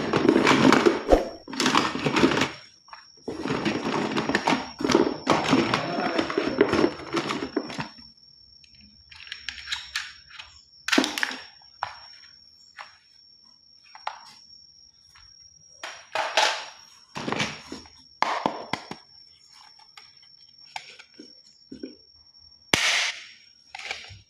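Packaging being handled and torn open, a dense rustling for several seconds, then scattered knocks and clicks of plastic toys being picked up and set down. A faint steady high whine runs underneath.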